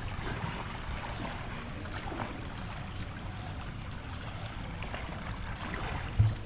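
Swimming-pool water lapping and splashing softly, a steady wash of water noise with a few faint ticks, and one brief low thump near the end.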